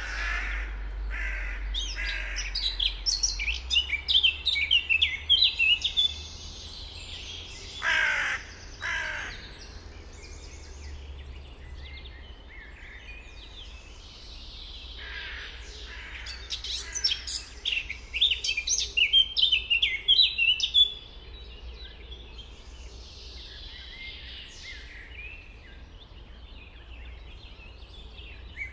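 Songbirds singing in bursts of fast, high chirping phrases, with a crow cawing at the start and twice about eight seconds in.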